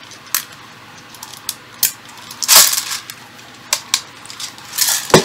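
Irregular sharp metallic clicks and clacks from handling an electric airsoft STG44's magazine, with two longer rattling scrapes, one about halfway through and one near the end.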